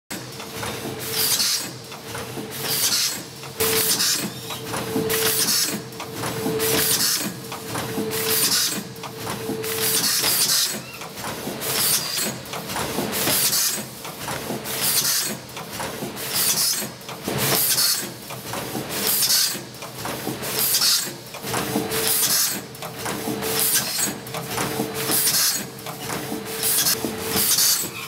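Automatic pouch packing machine running in its repeating cycle: a sharp hiss of air from its pneumatic cylinders roughly every second and a half, with smaller hisses between, over steady mechanical running noise and a faint on-and-off hum.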